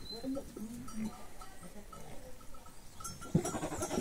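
Goats bleating: a fainter call at the start and a loud, long bleat near the end.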